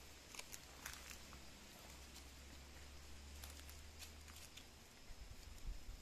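Near silence with faint, scattered clicks and scratches, like a coati's claws gripping vine bark as it climbs, and a few soft low thumps near the end.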